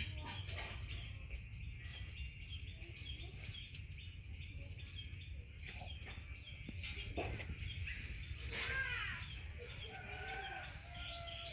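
Birds chirping with short high notes repeated over and over, then a falling call and a few longer held calls near the end, over a steady low rumble.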